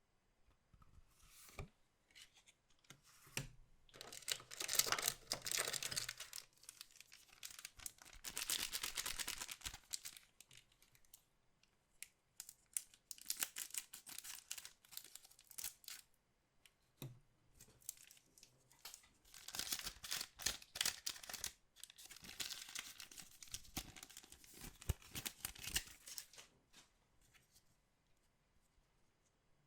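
Trading-card pack wrappers being torn open and crinkled, in several bursts of tearing and rustling with light clicks and taps between them.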